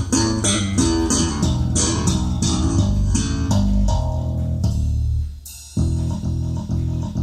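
Recorded music played through Focal Chorus 726 S floor-standing loudspeakers: plucked guitar over bass guitar. About five seconds in the music drops away briefly, then a regular pulsing bass line comes in at about two beats a second.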